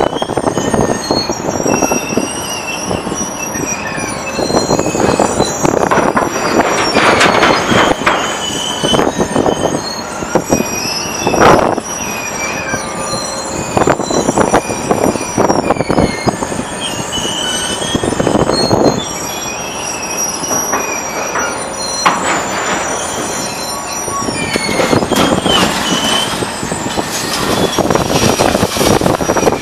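Scrap metal being handled by a material handler's orange-peel grapple and fed to a shredder: continuous clattering and screeching of metal on metal with many high squeals. One loud crash comes a little before halfway.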